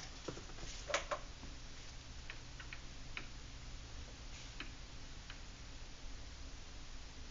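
Stylus tapping and scraping on a drawing tablet while numbers are handwritten: faint, irregular light clicks, a few at a time, over a low steady hum.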